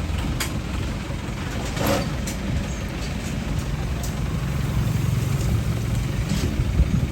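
Rice combine harvester engine running steadily: a low drone that grows a little stronger in the second half, with a few light clicks over it.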